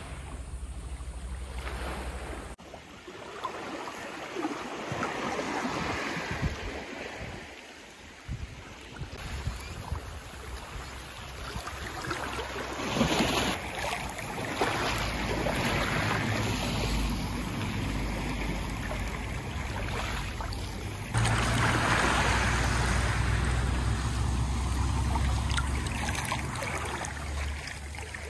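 Sea of Japan waves washing onto the shore, their hiss swelling and fading over a few seconds at a time, with wind rumbling on the microphone underneath. Everything gets abruptly louder about three-quarters of the way through.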